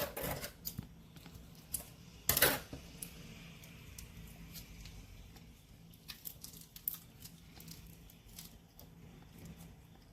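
Slime being mixed by hand with crunchy flakes worked in, a run of small sticky crackles and clicks with two louder bursts, one at the start and one about two and a half seconds in.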